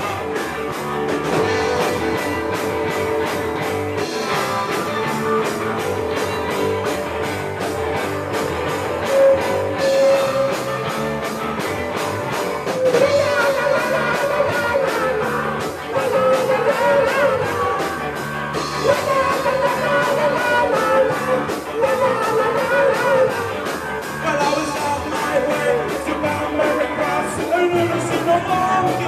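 Live rock band playing an upbeat song: a man singing into a microphone over electric guitar and a steady drum beat, loud and close.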